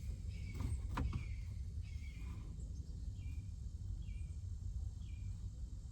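A bird chirping about once a second, short falling chirps, over a steady low rumble, with a couple of sharp clicks near the start.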